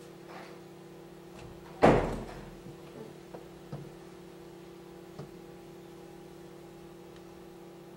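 A stage-set door banging shut about two seconds in, followed by a few faint clicks, over a steady low hum.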